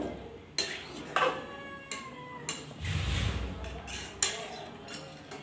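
Metal spatula clinking and scraping against a steel kadai while stirring hot water into chicken curry: about six sharp clinks that ring briefly, with a dull low rumble near the middle.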